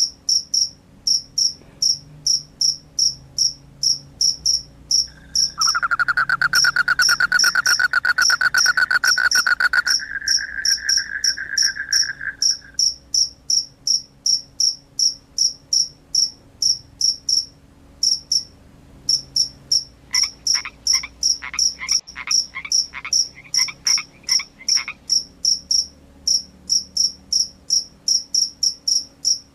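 Animal calls: a regular series of short, high-pitched chirps, about three a second, throughout. A loud, fast trill comes in about six seconds in and lasts about seven seconds. A lower pulsed call follows from about twenty seconds in for about five seconds.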